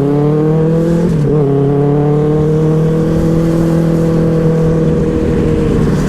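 Benelli 600i's inline-four engine under way: the pitch drops at a gear change about a second in, then holds a steady note that climbs slightly and eases off near the end.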